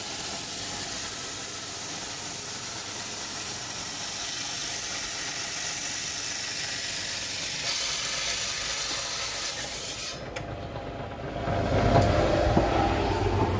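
Water spraying in a steady hiss. About ten seconds in it changes to a lower, splashing flow of running water.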